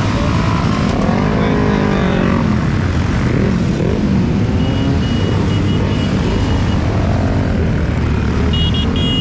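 A stream of motorcycles and scooters riding past in a group, their engines running together in a dense rumble, with engines revving up and down about one to two seconds in. A high beeping tone sounds on and off in the middle and again near the end.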